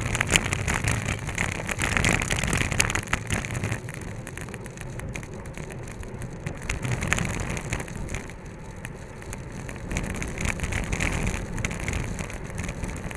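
Riding noise from a racing bicycle in a road race: wind rushing over the bike-mounted camera's microphone and road rumble, with frequent small rattles and clicks.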